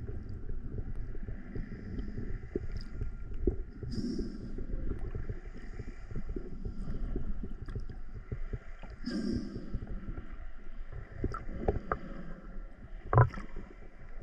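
Muffled underwater noise picked up by a camera below the surface: a steady low rumble of water movement with small knocks, and a breath or bubble burst every few seconds. A louder, short gurgle comes about thirteen seconds in.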